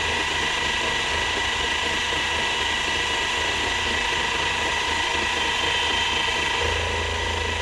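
Milling machine running with a steady whine while the end mill is fed slowly against the side of a metal block until it just starts to cut, touching off the edge to set the X zero.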